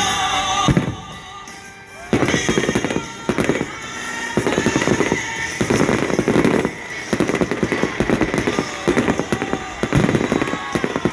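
Fireworks crackling and popping in a dense, rapid barrage. The sound eases off about a second in and starts up again at full strength about two seconds in.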